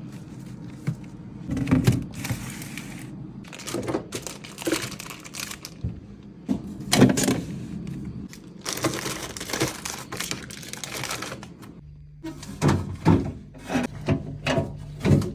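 Plastic packaging crinkling and items knocking as they are handled and set down, in irregular bursts with sharp knocks, over a steady low hum.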